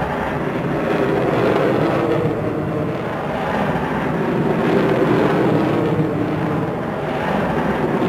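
A steady, engine-like rushing noise with a low drone beneath it, swelling slightly around the middle: a library sound effect.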